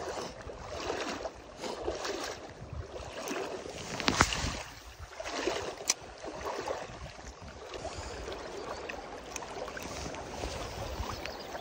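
Swift, shallow river current rushing steadily, with a gusty rumble of wind on the microphone. A couple of sharp clicks stand out, about four and six seconds in.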